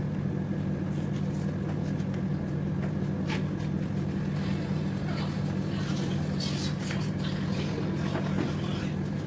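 A steady low mechanical hum from a running machine, with faint soft rubbing and light clicks on top.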